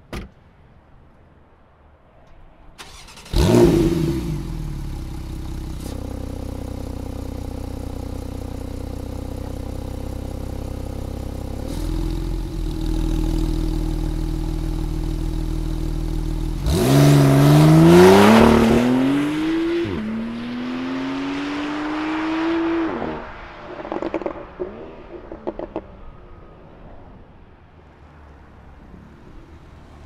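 Porsche 991.2 Carrera's 3.0-litre twin-turbo flat-six with the factory Porsche Sports Exhaust, started with a loud flare about three seconds in and settling into a steady idle. Near the middle it is blipped twice, the pitch rising and falling each time, with a few short pops as the revs drop away before it quiets.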